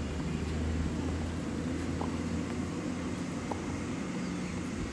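Steady low rumble of background noise, with two faint short squeaks about two and three and a half seconds in.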